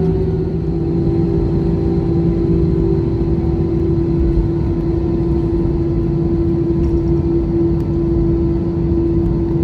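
Jet engines of an easyJet Airbus A320-family airliner running at taxi power, heard inside the cabin: a steady hum with a held tone that drops slightly in pitch about half a second in.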